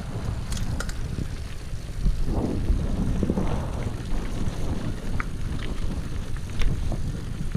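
Wind buffeting a moving camera's microphone over the low rumble of mountain bike tyres rolling on a dirt road, with a few scattered clicks.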